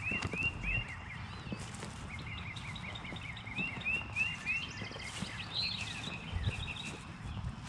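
A songbird singing outdoors: quick series of repeated arching chirps, several phrases one after another, over low rustling and a few soft thumps.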